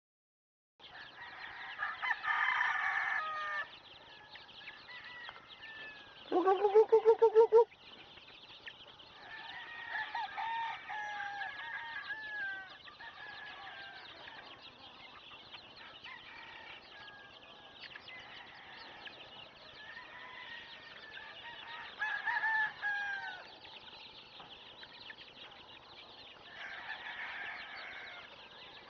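A flock of young gamefowl chicks peeping and chirping, with short sliding calls over and over. A few louder, longer chicken calls break in. The loudest is a rapid stuttering call of about ten beats, about a quarter of the way in.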